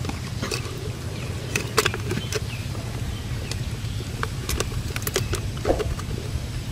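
Light clicks and crackles of a plastic drink bottle being handled, over a steady low rumble.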